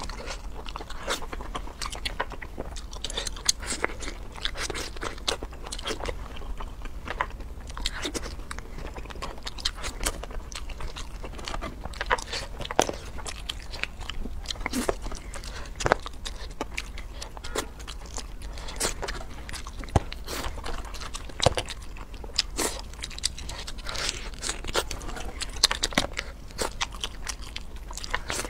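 Close-miked eating of spiced crayfish: irregular crunches and sharp cracks of shell being peeled by hand, with biting and chewing in between. A steady low hum runs underneath.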